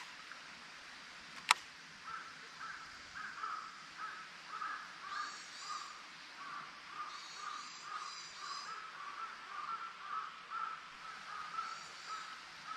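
Crows cawing over and over, about two to three calls a second, with higher calls joining in a few times. One sharp click sounds about a second and a half in.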